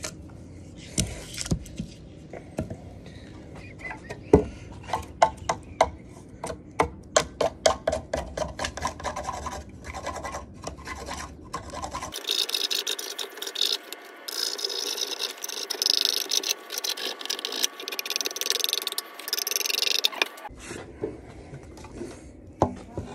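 Knife blade shaving and scraping a green wooden axe handle: a run of short, sharp strokes, several a second. It changes to a denser, hissier scraping for several seconds in the middle, then goes back to separate strokes near the end.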